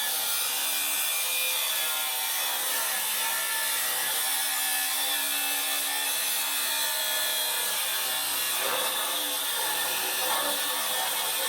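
Interskol 230 mm brushless angle grinder, 3.5 kW, with its disc grinding steel: a steady, loud, hissing grind with whining tones that shift in pitch as the load changes.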